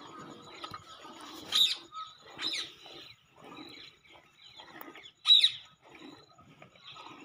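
Milk squirting into a steel pail in rhythmic strokes, about two a second, as a water buffalo is milked by hand. Birds chirp over it, with a few sharp calls; the loudest comes about five seconds in.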